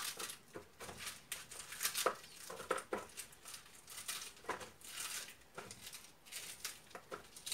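A small knife cutting through a handful of fresh spinach leaves and stems held in the hand, a run of crisp, crunchy cuts coming at irregular intervals several times a second.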